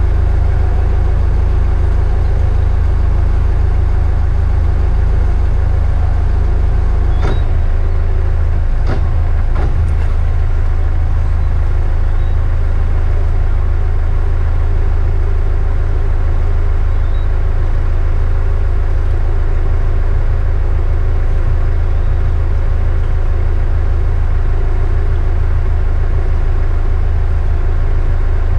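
The catamaran's inboard engines run steadily with a low drone, one engine in forward and the other in reverse to pivot the boat. A few light knocks sound about seven to ten seconds in.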